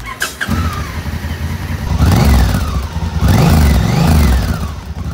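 Yamaha XT250's single-cylinder four-stroke engine accelerating away, revving up and dropping back twice, then fading near the end.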